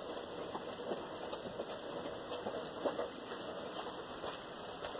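Steady rain falling, with scattered drops ticking sharply here and there.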